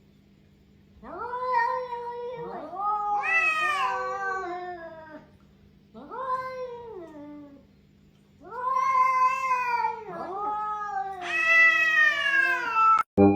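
Cats caterwauling: about five long, drawn-out yowls that rise and fall in pitch, with two voices overlapping at times.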